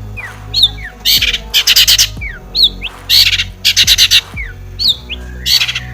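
Long-tailed shrike (cendet) singing: about five loud, harsh, rasping squawks, with short, sharp, downward-sliding whistles between them, over background pop music with a steady bass.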